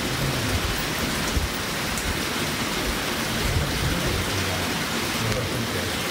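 A steady, even outdoor hiss with irregular low rumbles underneath, rain-like in character.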